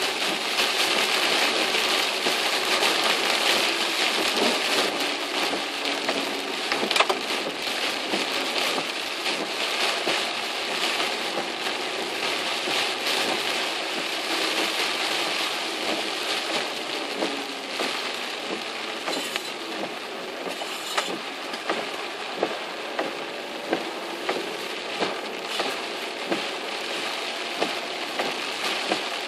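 Heavy rain falling on a moving car's windshield and roof, heard from inside the car as a dense, steady hiss mixed with tyre noise on the wet road. In the last several seconds a short tick repeats about once a second.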